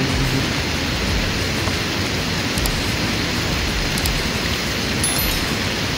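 Steady, even hiss of rain falling on the forest around the camp.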